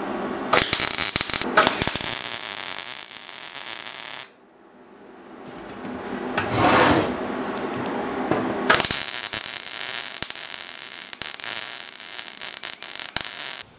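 MIG welder arc crackling and sizzling as a steel hinge is welded onto a steel pipe. There are two runs: one from about half a second in to about four seconds, and a longer one from about nine seconds that cuts off suddenly just before the end.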